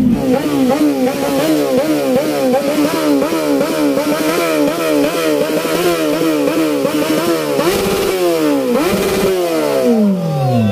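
Motorcycle engine revved in quick repeated throttle blips, about two or three a second, then a few slower revs, the last one falling away near the end.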